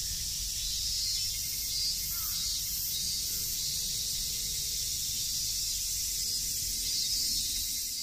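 Cicadas calling in a steady, high-pitched chorus, with a faint low rumble underneath.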